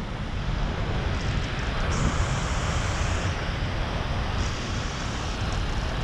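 Steady wind rushing over the camera microphone as a skydiver descends under an open parachute canopy, with a strong low rumble.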